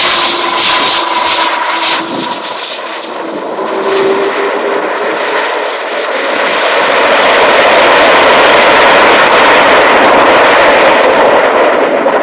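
Jet engines of an Airbus A330-300 (Rolls-Royce Trent 700s) as the airliner rolls out after touchdown. There is a whine slowly falling in pitch, then from about halfway a broad rush of engine noise builds to its loudest.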